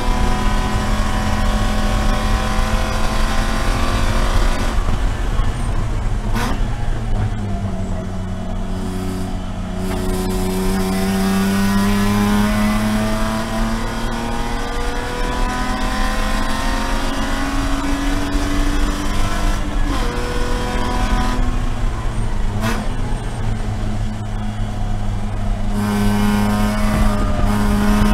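In-cabin sound of a Spec E46 BMW race car's straight-six engine working hard at high revs, its pitch falling and climbing several times with braking, shifting and acceleration. There are brief breaks at about six seconds and twenty-three seconds in.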